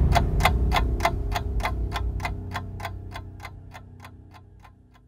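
Clock ticking, about four ticks a second, over a low steady drone, the whole fading out to silence near the end.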